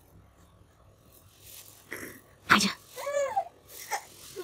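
Baby waking from sleep: a sudden cough-like burst about halfway through, then a short whimper that rises and falls in pitch, and another short sound near the end. The footage is fast-forwarded, so the sounds are sped up.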